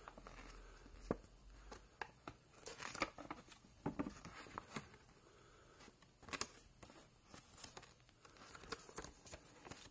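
Faint paper rustling and crinkling as a folded instruction leaflet is unfolded and handled, in scattered short crackles.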